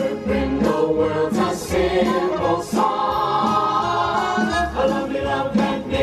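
A show tune with a group of voices singing together over instrumental backing with a steady beat, from a street show's performers dancing beside a horse-drawn trolley.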